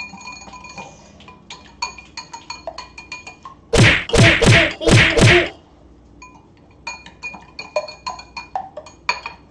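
Wire whisk beating eggs in a glass bowl, the wires clinking rapidly against the glass. In the middle the whisking gives way to four loud whacks in quick succession, after which the clinking resumes.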